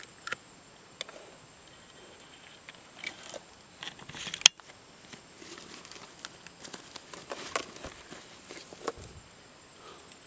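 Handling noise: rustling and scattered clicks and knocks as a backpack and gear are handled close to the microphone, with one sharp click about four and a half seconds in. A faint steady high tone runs underneath.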